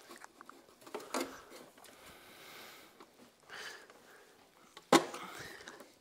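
Spanner clicking and knocking against a small bolt on a metal cover plate as it is worked by hand, with one sharp, loud knock about five seconds in.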